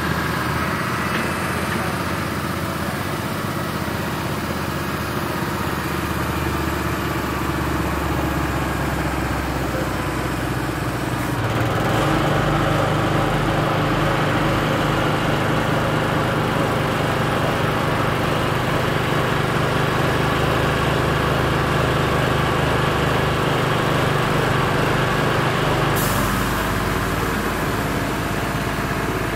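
Crane truck's diesel engine running steadily. About twelve seconds in it speeds up to a louder, busier note while the crane hoists a load, then drops back near the end with a brief click.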